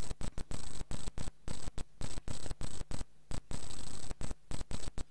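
Hiss and mains hum from the microphone and sound system, with a faint steady high whine, cutting in and out rapidly several times a second, during a pause in the recitation.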